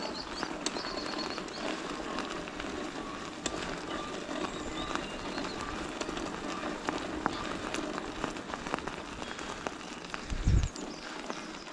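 Kettler e-bike climbing a forest track: tyres crunching on gravel with the faint whir of its mid-drive motor, a motor the owner says sounds dry and in need of grease. A dull thump about ten seconds in.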